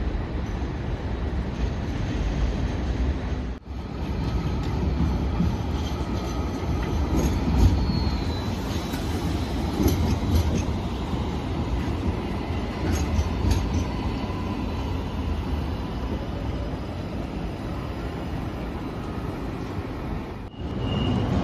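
Light rail tram running on its rails close by: a continuous low rumble with faint high-pitched whines over it, broken by two brief drops in the sound.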